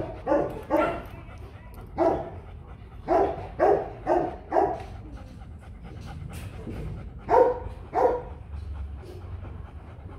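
A dog barking, about ten short barks, singly and in quick runs of two to four, with a lull for a few seconds in the middle.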